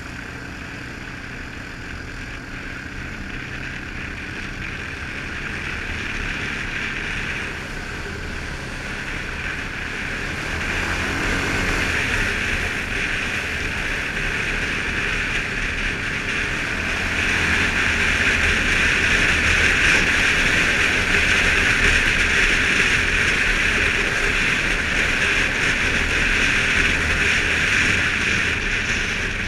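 Suzuki KingQuad ATV riding along a gravel track: its engine runs under a steady rushing of wind and road noise. The rushing grows louder as the quad picks up speed, about a third of the way in and again past halfway.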